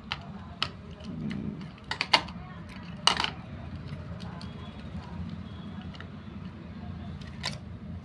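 Sharp plastic clicks and taps as a battery pack is pressed into an RC stunt car's plastic battery compartment, a handful of separate clicks with the loudest about three seconds in, over a steady low hum.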